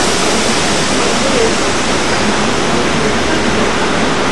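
Steady rushing street noise: an even hiss with no distinct events standing out.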